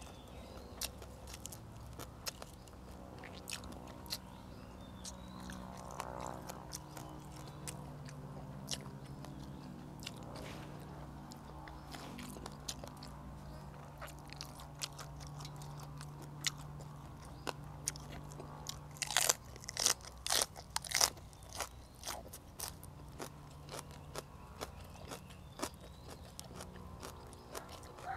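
Close-miked chewing and crunching as a person eats spicy stir-fried frog with raw vegetables. There are sharp crunches throughout, with a run of louder crunches about two-thirds of the way in.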